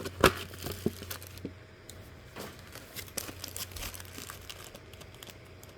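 A blaster box of trading cards being torn open, its cardboard and wrapping crinkling and tearing, with a couple of sharp snaps in the first second.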